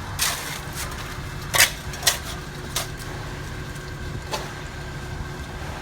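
Scattered sharp knocks and clinks, about five in all and unevenly spaced, over a steady low rumble.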